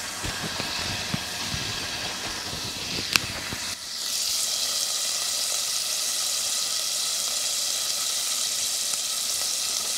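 Beef steak sizzling in salted butter in a hot pan, a steady hiss. A sharp click comes about three seconds in, and the sizzle grows louder about a second later and holds steady.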